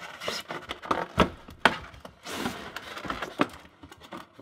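Cardboard and foam packaging being handled by hand: an irregular series of knocks, clicks and scrapes with some rustling.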